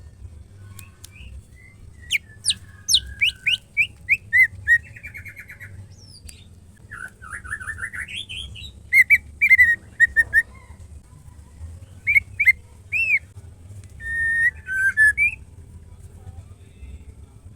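Female white-rumped shama calling to males. It gives several loud bursts of clear whistled notes and quick downward-sweeping chirps, with a rising slurred run in the middle and short pauses between the phrases.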